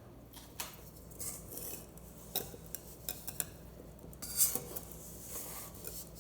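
A utensil stirring muffin batter in a mixing bowl, with irregular scraping and short clinks against the bowl's side.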